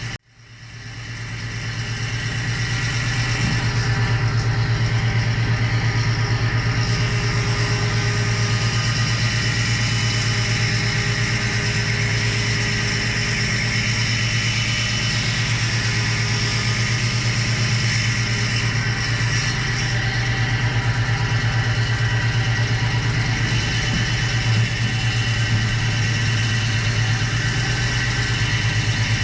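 A machine's motor starting up, spinning up over about two seconds, then running steadily with a constant hum and a few faint knocks.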